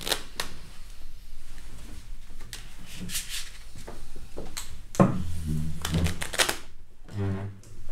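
A chair scraping on the floor with a thump as someone sits down at a card table, amid light clicks and rustling of poker chips and hands.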